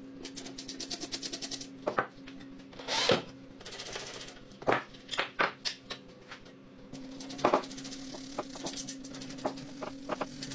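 Ratchet wrench clicking in quick runs as bolts are undone, with several sharp metal knocks and clanks of parts, over a low steady hum.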